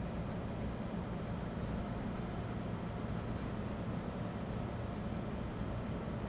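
Inside the cab of a 2009 Land Rover Defender 90 at a steady motorway cruise: the low, constant drone of its Ford Puma 2.4-litre four-cylinder turbodiesel mixed with an even rush of tyre and wind noise, unchanging throughout.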